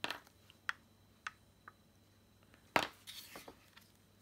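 A few light ticks as a block of encaustic wax is touched against the plate of a small painting iron, then a louder knock about three seconds in as the iron is set down on the paper, followed by a brief rustle of paper.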